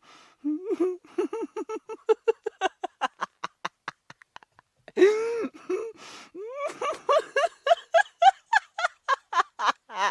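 A person laughing in two long fits of quick, high-pitched ha-ha pulses, about six a second, the pitch climbing as each fit goes on; the second fit opens about halfway through with a loud drawn-out cry.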